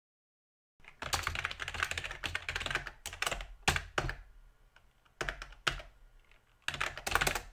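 Computer keyboard being typed on, the keys clattering in quick runs with short pauses between. The typing starts about a second in.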